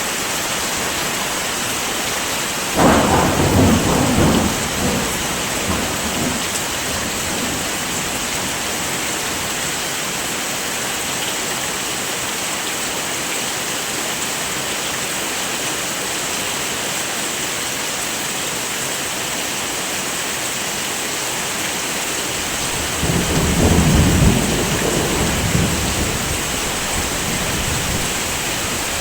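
Steady heavy rain hiss with two rolls of thunder: one starts suddenly about three seconds in and rumbles for a few seconds, and a second builds more slowly about twenty-three seconds in, then fades away.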